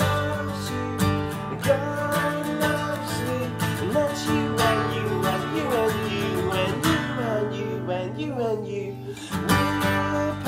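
Acoustic guitar strummed in a steady rhythm while a man and a young boy sing a children's worship song along with it.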